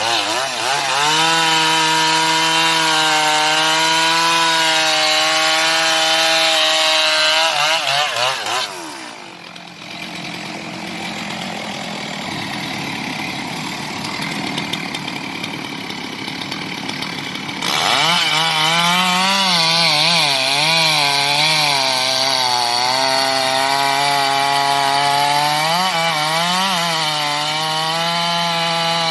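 Chainsaw running at full throttle, cutting through a very large log; its pitch sags and wavers as the chain bites. About nine seconds in it drops to a quieter hiss for several seconds, then comes back at full revs.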